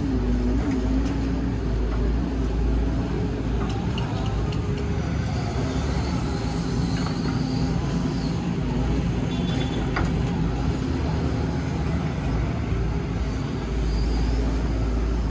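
Excavator's diesel engine running steadily, with one short sharp knock about ten seconds in.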